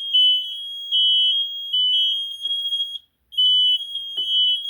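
Several smoke alarms (Kidde i9010s and a fireX i4618ac) sounding at once, set off by humidifier steam; their shrill beeps at two slightly different pitches overlap out of step into an almost continuous tone. The sound cuts out briefly about three seconds in.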